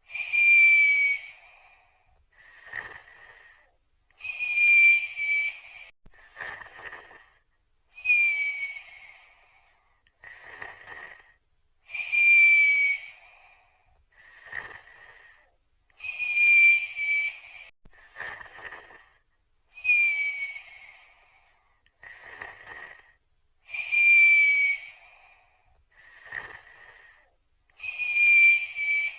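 Snoring sound effect with a whistle: each loud breath carries a high whistle that slides slightly down in pitch, and a shorter, quieter breath without the whistle comes between. The cycle repeats steadily about every four seconds.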